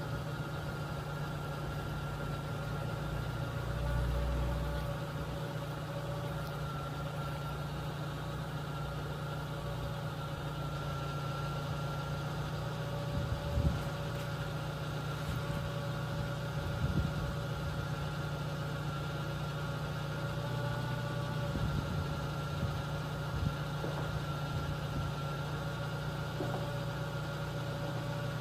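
Railway level crossing warning signal sounding as steady tones over the low hum of an idling engine, with a few faint knocks.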